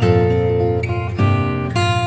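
Background music: plucked acoustic guitar, with notes changing about every half second.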